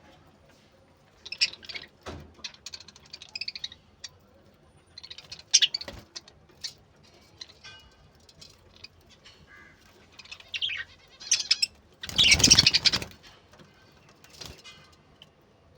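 Budgerigars chirping and chattering in short, scattered bursts, with a loud noisy burst lasting about a second past the middle.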